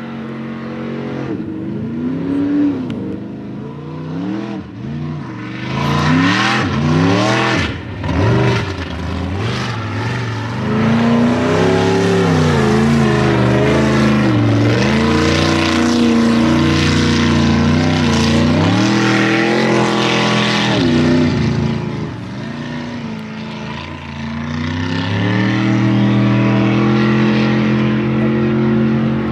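Mud truck engine revving hard, its pitch climbing and dropping over and over. After a brief lull it holds a steadier, slowly rising run in the last few seconds.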